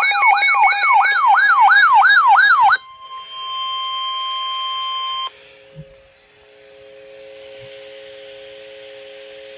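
Emergency alert tones before a severe thunderstorm warning message: a loud siren-like wail sweeping up and down about three times a second, cut off after about three seconds by a steady single alert tone. That tone stops about five seconds in, leaving a quieter steady low hum.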